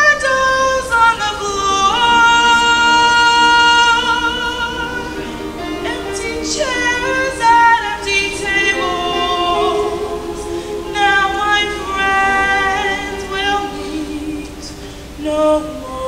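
Mixed choir of women's and men's voices singing held chords, with voices sliding into new notes about a second in and again around the middle.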